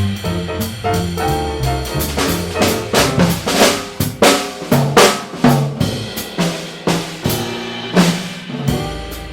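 Jazz drum kit playing a busy break of snare, rimshot and bass drum hits, loudest through the middle. A bass plays low notes under it at the start and again near the end.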